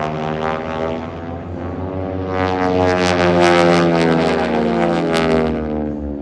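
Propeller-driven aerobatic planes flying past, their piston engines growing louder and rougher, then dropping in pitch and fading as they pass.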